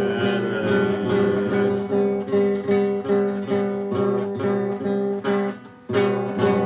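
Acoustic guitar strummed in a steady rhythm, about three strokes a second, with a brief break shortly before the end.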